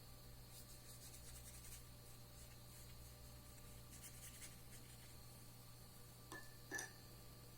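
Faint, scratchy strokes of a watercolour brush across paper, with two light clicks near the end.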